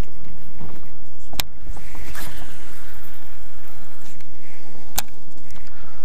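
Wind buffeting the microphone as a steady low rumble, with two sharp clicks, about a second and a half in and near five seconds in.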